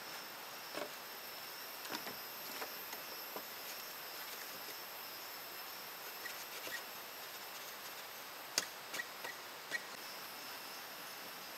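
Steady high-pitched insect chorus, with a few scattered light knocks and clicks, the sharpest a cluster of three about three-quarters of the way through.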